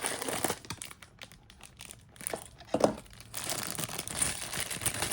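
A small cardboard blind box being torn open from the back by hand, with packaging crinkling; a sharp snap near the middle, then steady crinkling and rustling.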